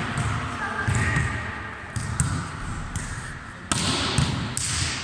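Volleyball being struck in forearm passes (bumps), with a few sharp slaps of the ball about two seconds in and near the end, echoing in a large sports hall.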